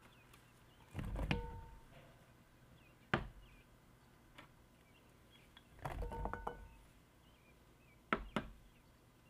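Chunks of zucchini, then baby carrots, tipped into a large glass mixing bowl of cut potatoes: twice, about a second in and about six seconds in, a short clatter of thuds with the glass bowl ringing. Each pour is followed a couple of seconds later by a sharp glass clink.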